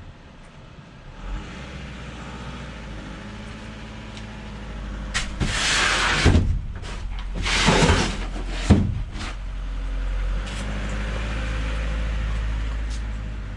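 A vehicle engine running steadily, with two loud noisy bursts and a few sharp knocks about halfway through.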